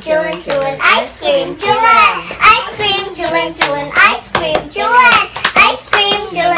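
A young girl's high voice chattering in a sing-song way, with a few light clicks of a plastic ice-pop mould being handled.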